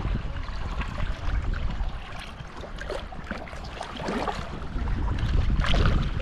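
Wind buffeting the microphone, a low rumble that eases off in the middle and gusts up again near the end, with scattered small ticks and rustles.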